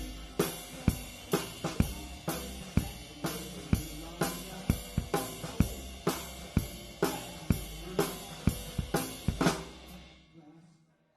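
Live rock band with the drum kit to the fore: steady snare and bass drum hits about twice a second with cymbals and hi-hat, the song ending about ten seconds in as the sound rings out.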